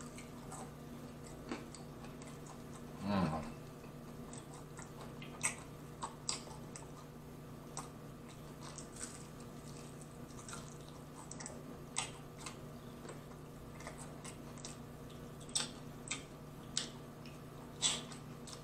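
Close-miked eating sounds of a man eating fried chicken wings: scattered lip smacks and wet chewing clicks, with a short voiced sound about three seconds in and a louder smack near the end as he licks his fingers. A faint steady hum lies underneath.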